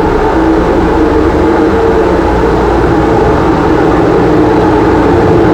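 Dust collector and fume extractor blowers running together: a loud, steady whir of rushing air with a low hum and a few steady tones.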